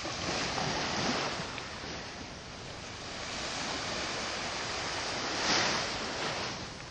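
Small waves washing onto a sandy shore, with wind on the microphone; the rush of surf grows louder about a second in and again near the end.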